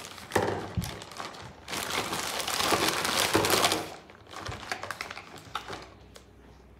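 Clear plastic zip-top bag crinkling as a hand rummages among the small food colouring bottles inside, with a few light clicks of bottles knocking together. The rustling is loudest from just under two seconds in to about four seconds in, then dies down.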